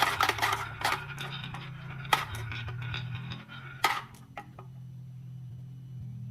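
Glass marbles clicking and clattering down a wooden marble-run track, a quick flurry of clicks at first that thins to a few single clicks, over a steady low rolling rumble.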